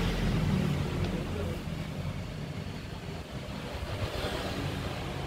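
A steady low rumble of background noise, with faint voices in the background.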